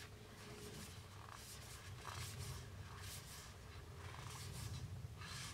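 Tarot cards slid one at a time across the deck by hand, several soft papery swishes about a second apart, over a low steady hum.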